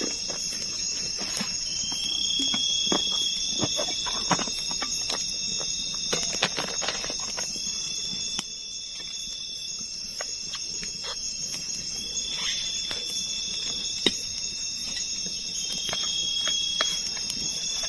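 Night chorus of forest insects: a steady high-pitched buzzing, with a separate trilling call that repeats every few seconds. Scattered small clicks and knocks sound over it.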